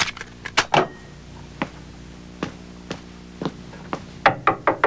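Knuckles rapping on a wooden door: a quick run of about five knocks near the end, after a few scattered light clicks and taps.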